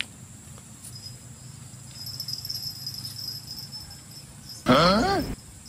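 Crickets trilling steadily in the background, then, near the end, a brief, loud shout from a person, the pitch rising and falling.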